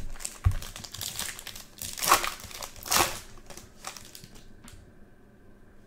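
Trading-card pack wrapper crinkling as it is opened and the cards pulled out: a run of crackles, loudest about two and three seconds in, dying away after about four and a half seconds.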